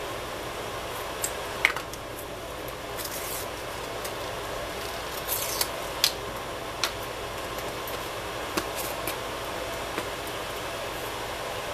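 Spice shakers being handled and shaken over a glass bowl of meat: a few light clicks of caps and bottles, and two short hissing rattles of dry seasoning being shaken out, over a steady background hum.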